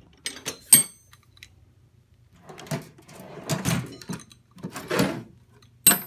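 Metal hand tools clinking and clattering in a toolbox drawer as sockets, wrenches and hex keys are picked through. A couple of sharp, ringing metal clinks come about half a second in and again near the end, with duller shuffling clatters in between.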